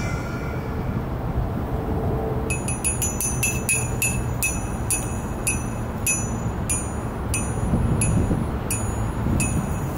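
Small metal percussion, a bell-like piece struck again and again in an uneven rhythm, about two to three strikes a second, each ringing briefly at the same high pitches. The strikes start about two and a half seconds in and stop shortly before the end, over a steady low background rumble.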